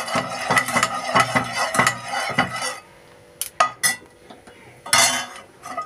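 Steel spoon scraping and clicking against a granite-coated nonstick kadhai as a little oil is spread around it: a quick run of scrapes for the first three seconds or so, then a few separate taps and one more short scrape near the end.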